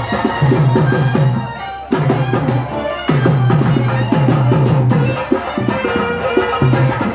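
Loud Pandari bhajana folk music: rapid, even drumming with a held, reedy wind-instrument melody over it. The drumming breaks off briefly twice, about two and three seconds in.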